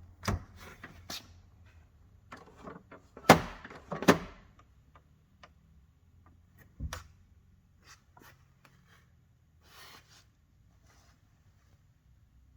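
Scattered knocks and clunks of car interior parts being handled and pulled loose during dismantling, the loudest pair about three and four seconds in, with a few lighter taps and rustles after.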